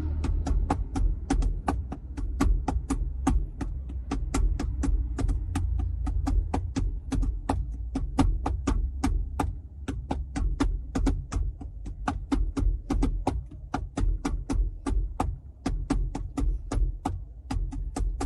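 A low, wavering hum with a rapid train of sharp clicks or taps over it, about four a second and slightly uneven.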